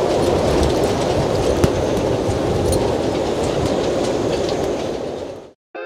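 Force 10 storm wind blowing hard and buffeting the microphone: a loud, dense, steady rush with heavy low rumble. It fades out near the end.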